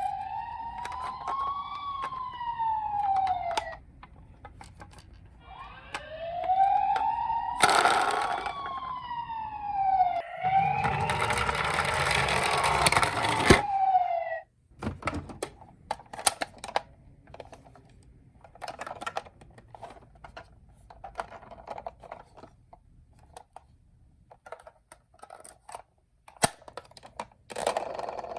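Toy emergency vehicle's electronic siren wailing, rising and falling slowly three times, with a rough rolling noise under the third wail. After about 15 seconds the siren stops and scattered plastic clicks and rattles of the toy cars being handled follow.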